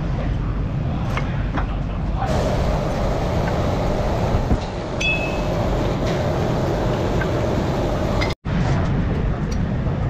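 A steady low rumble, with a few light metal clicks and clinks as a brake caliper is handled and lifted off its rotor.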